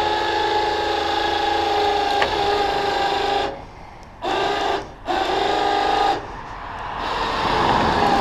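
Electric winch motor whining as it reels in cable, run in bursts: a steady pull of about three and a half seconds, two short jogs, then it stops about six seconds in. After that a rough scraping noise rises toward the end, the heavy wood round rubbing as it is dragged.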